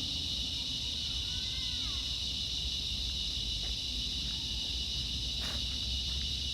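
Steady high-pitched buzzing of an insect chorus that starts and stops abruptly, with a faint bird chirp about one and a half seconds in and a low rumble underneath.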